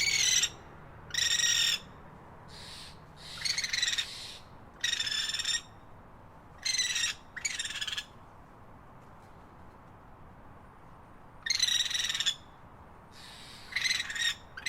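A bird calling repeatedly: about ten short calls, each about half a second, several in quick pairs with pauses between, over faint steady background noise.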